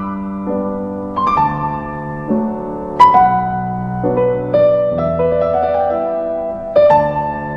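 Slow solo piano music: chords and single notes struck every second or so and left to ring, with the loudest, highest note about three seconds in.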